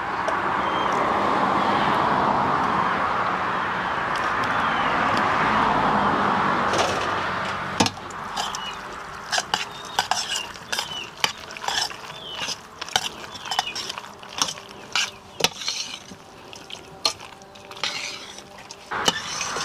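A metal spoon stirring mayonnaise into pasta in an aluminium pot, scraping and clinking against the pot in quick, irregular strikes from about eight seconds in. Before that, a rushing noise swells and fades.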